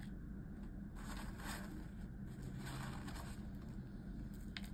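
Faint rustling of crisp fried garlic flakes being sprinkled by hand onto a plate of food, over a steady low hum, with a couple of light clicks near the end.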